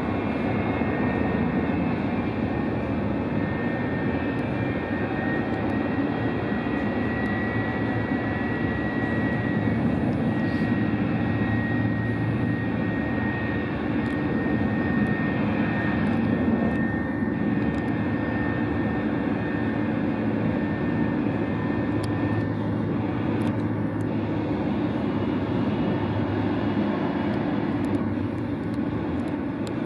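Jet engines of a McDonnell Douglas MD-87 air tanker running at taxi power: a steady rumble with a thin high whine that fades about two-thirds of the way through. The sound is muffled through window glass.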